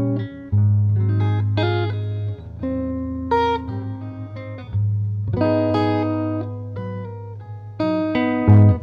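Small jazz combo playing an instrumental break in a slow ballad, with no singing. Single notes and chords that ring and fade sit over long, deep bass notes.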